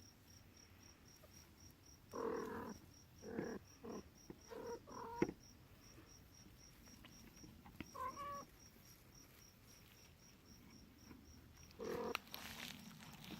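Kitten mewing: a quick run of about six short mews, then a single mew a few seconds later and another near the end.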